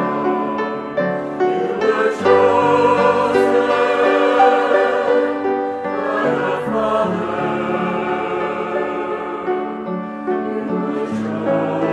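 A choir singing a slow Marian hymn in long held notes.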